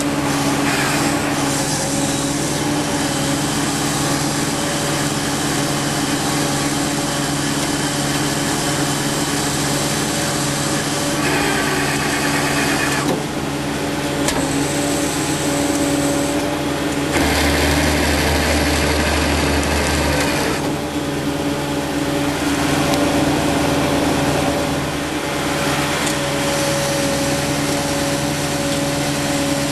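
Tow truck engine running steadily at a constant speed, with added mechanical noise that swells and fades a few times, around 11 to 13 seconds in and again about 17 to 20 seconds in.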